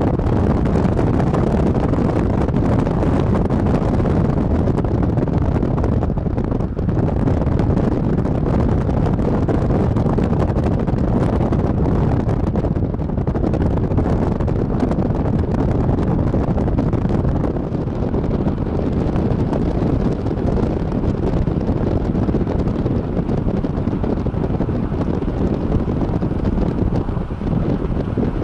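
Wind buffeting the camera microphone: a steady, low rumbling noise with no break.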